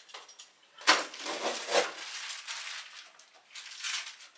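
Cardboard box and packaging handled during unpacking: a sharp knock about a second in, then cardboard rustling and scraping, with fainter rustles near the end.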